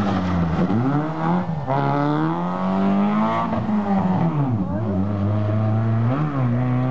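Small hatchback rally car accelerating hard out of a hairpin and up the road. The engine note climbs and drops back several times as it changes up through the gears, then holds steadier near the end.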